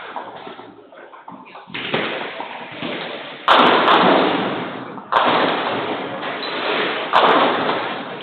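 Nine-pin bowling balls landing on the lanes and rolling toward the pins, one delivery after another: four sudden heavy hits one to two seconds apart, the second the loudest, each trailing off into a rumbling roll.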